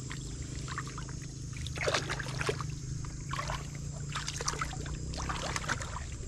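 Shallow pond water splashing and sloshing in short, irregular bursts as a hand gropes through it among water lilies and mud, over a steady low rumble.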